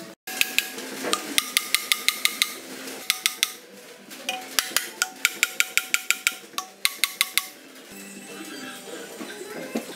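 Runs of quick, light hammer taps on the metal of a Hino six-cylinder engine's cylinder head, about five sharp ringing clinks a second, broken by short pauses. Background music plays underneath.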